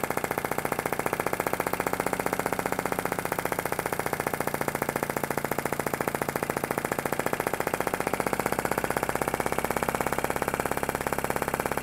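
PM Research Solar Engine #3, a small flame-licker model engine, running with a rapid, even clicking beat. It is still warming up while its flame is adjusted, so it is not yet at full speed.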